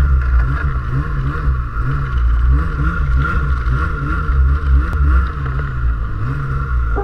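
Snowmobile engine running under throttle through deep snow, heard from on board, its revs rising and falling over and over, with a steady higher whine over the engine note.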